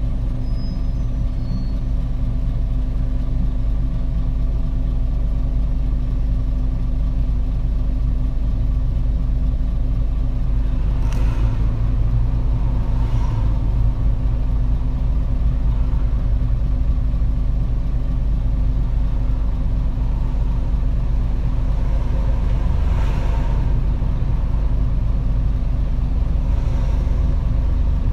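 Diesel city bus, a 2008 Nissan Diesel Space Runner RA (PDG-RA273KAN), running with a steady, unchanging engine drone. A few brief rushing swells of noise come and go over it.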